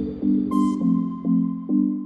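Background music: electronic synthesizer music with a steady pulsing beat of chords, about two and a half pulses a second.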